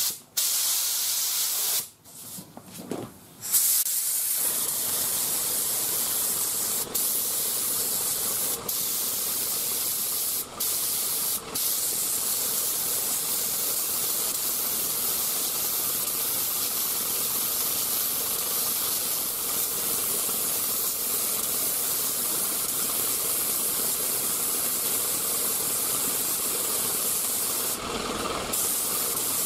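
3M Performance HVLP spray gun laying a medium-to-wet coat of single-stage urethane paint: a steady high hiss of air and paint from the gun. It starts with a few short bursts and has brief breaks between passes as the trigger is let off. Near the end a lower rumble comes in under the hiss.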